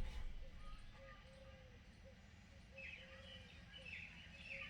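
A modern car just switched off: its low engine rumble dies away in the first second, followed by a faint, on-and-off hum that the owner puts down to the electronic throttle body after shut-off. Birds chirp repeatedly from about three seconds in.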